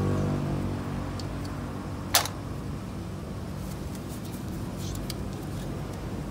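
Metal hand tools clicking and clinking against the fittings of a truck engine being taken apart for overhaul. One sharp click about two seconds in is the loudest, with a few lighter clicks later. A low engine-like hum fades out in the first second.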